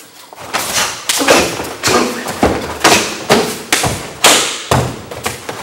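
Kenpo self-defence technique performed at speed on a padded mat: about a dozen sharp slaps and thuds in quick, uneven succession as strikes land on the partner's body and gi, feet pound the mat, and the partner is taken down onto the mat and stomped at.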